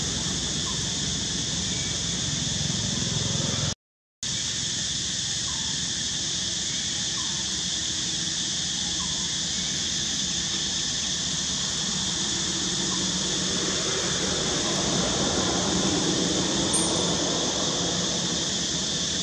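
Steady high-pitched insect chorus in the trees, which cuts out for about half a second roughly four seconds in. In the second half, a plastic bag rustles and crinkles as a young macaque handles it.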